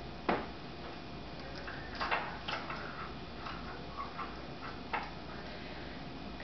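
A few sharp clicks and light taps of a metal utensil against a boiled egg's shell and its porcelain egg cup, as the egg's top is worked off. The sharpest click comes just after the start, and lighter ones follow about two, three and five seconds in.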